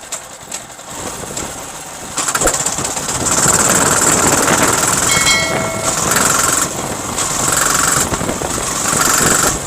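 Yamaha R15 V3's single-cylinder engine running, getting much louder about two seconds in and staying loud. It has a knocking 'tik tik' that the mechanic puts down to adulterated local petrol not burning properly.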